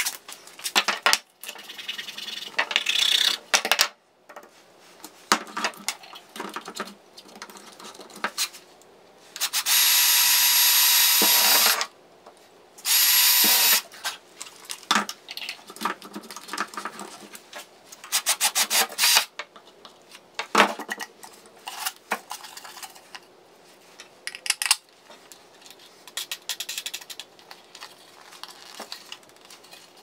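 Cordless drill running in two steady bursts with a high whine, one of about two and a half seconds and then one of about a second and a half, about ten seconds in. Around them, clicks and clatter of small parts and tools handled on a workbench.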